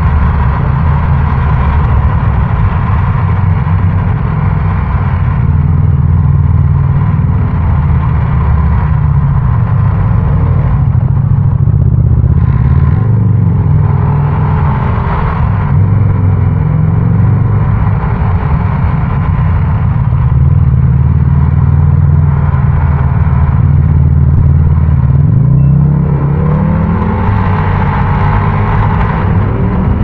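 Motorbike engine running under way, heard from the rider's seat, its pitch climbing as it revs up near the end.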